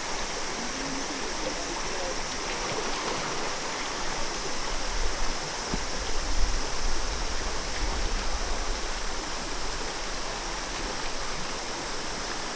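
Steady rushing of a mountain stream or waterfall, with a low rumble that swells about halfway through.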